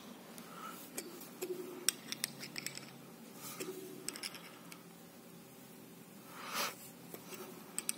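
Faint metallic clicks and scrapes of an open-end wrench turning a threaded eye bolt in a brick wall, tightening a thin steel wire guide. The clicks come in small clusters, a little more than a second in and again around four seconds in.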